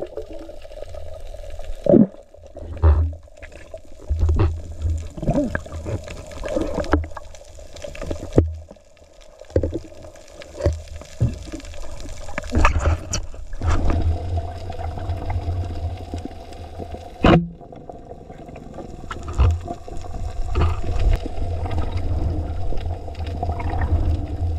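Muffled underwater sound through a diving camera's housing: water rushing and gurgling with repeated knocks and thumps as the diver handles the speargun and speared fish, over a steady low hum.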